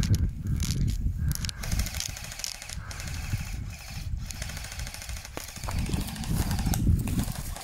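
Gel blaster firing in fast rattling full-auto bursts.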